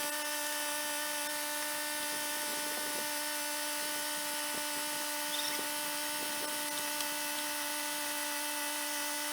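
A small electric device running with a steady, even hum-whine of several pitches, with a few faint ticks.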